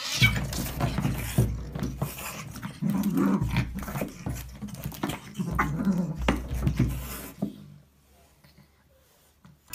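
Pets growling and snarling at each other in a scuffle, with sharp bursts throughout; it stops about seven and a half seconds in.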